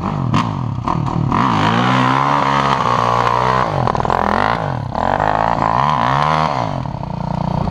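Kawasaki KX450F dirt bike's single-cylinder four-stroke engine revving hard in two long surges, the pitch rising and falling, with a dip between them, as the rear wheel spins in deep mud. It settles to a steadier, lower run near the end.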